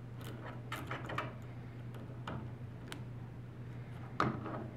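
Small clicks and taps of plastic parts as a camera module is worked loose and lifted out of the corner of a SMART Board interactive whiteboard frame, with one louder knock about four seconds in, over a low steady hum.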